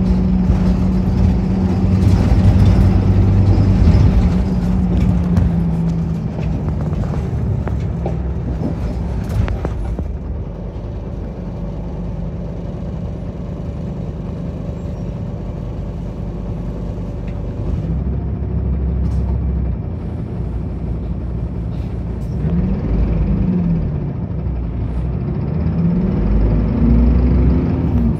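Route bus engine and road noise heard from inside the passenger cabin. The engine note is steady for the first few seconds and quieter through the middle, then rises and falls several times near the end as the bus accelerates through its gears.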